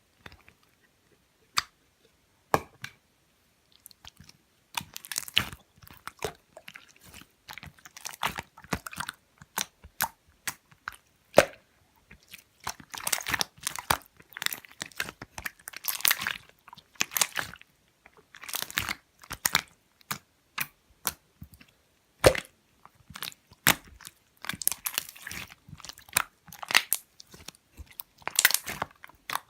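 Pearl slime being squeezed, folded and poked by hand, giving sharp sticky clicks and crackling air-bubble pops in irregular bursts, sparse at first and busier after about five seconds.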